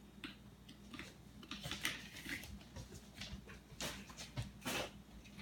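Knife twisted back and forth in the split of dry, three-month-old river cane, making faint, irregular cracks and scrapes, with a few louder ones about two, four and almost five seconds in, as it is forced at a tough joint that will not split.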